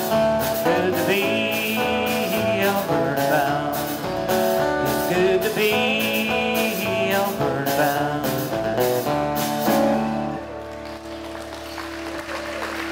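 Live country band playing the closing bars of a song over a steady beat of about two drum strokes a second, stopping about ten seconds in. One low note is left ringing, with light applause.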